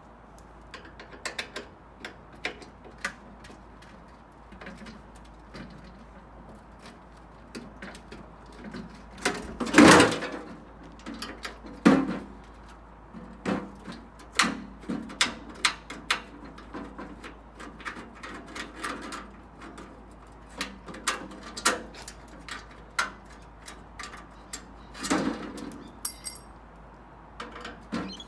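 Irregular clicks, taps and knocks of hand tools on sheet steel and metal parts as a microwave is taken apart by hand, with two louder bangs near the middle.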